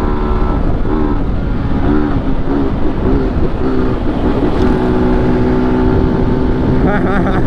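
BMW G 310 GS single-cylinder engine running through a modified 'mangote' exhaust while riding, its pitch swelling up and dropping in short repeated arcs for the first few seconds, then holding steady from about halfway. Wind rumble on the microphone underneath.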